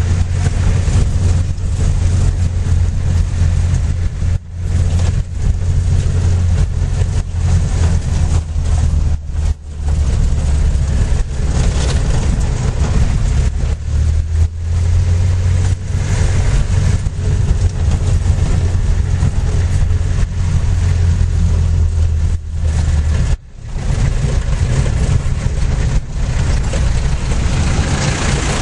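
A vehicle engine drones loudly and steadily, heard from inside the moving vehicle's cabin, with a lot of road and rattle noise over it. The drone dips briefly a few times.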